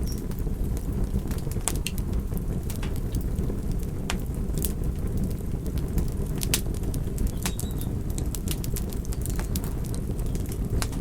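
Wood fire crackling: a steady low rush of flames with scattered sharp pops and snaps.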